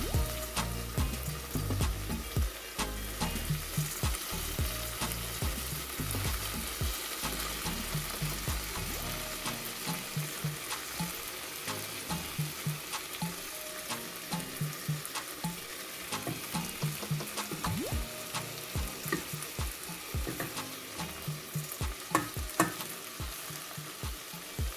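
Food sizzling as it fries in oil in a pot, with a utensil stirring and scraping against the pot in frequent clicks and knocks.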